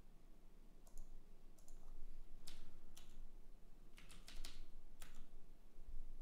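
Typing on a computer keyboard: scattered single keystrokes, with a quick run of several around four seconds in.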